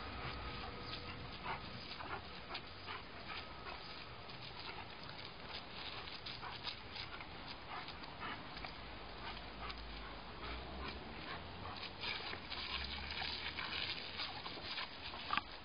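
German Shepherd lunging and snapping its jaws at the jet from a garden hose, with many short sharp clicks and splashes over the steady hiss of the spray.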